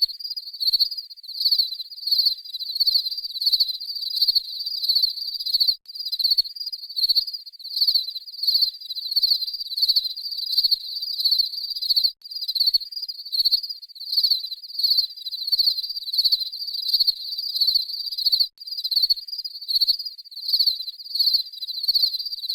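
A cricket chirping, a high-pitched, even run of regular chirps with a short break about every six seconds.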